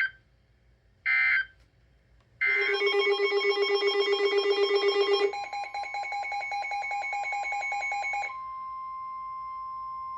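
EAS/SAME digital data bursts from a NOAA Weather Radio broadcast: two short screeching bursts ending the previous message. Then about six seconds of a loud, rapidly pulsing electronic alert tone that changes pitch about halfway through, then a steady single-pitch alarm tone, the warning alarm tone that comes before a severe thunderstorm warning.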